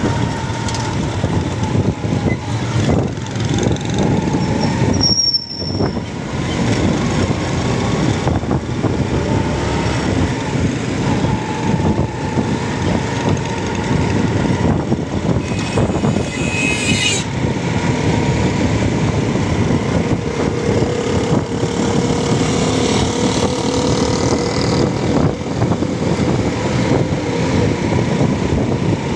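Motorcycle engine running steadily while riding through city traffic close behind an auto-rickshaw. Road and traffic noise mix in, with a brief high-pitched squeal about five seconds in and a short rising whine around sixteen seconds.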